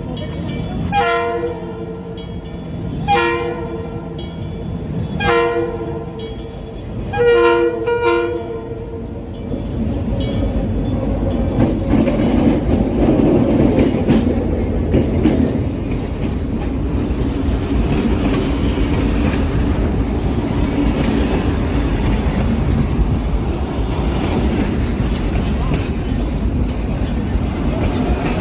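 G22W-AC diesel locomotive horn sounding four chord blasts about two seconds apart, each about a second long. From about ten seconds in, a louder steady rumble of the locomotive running and rolling on the rails takes over.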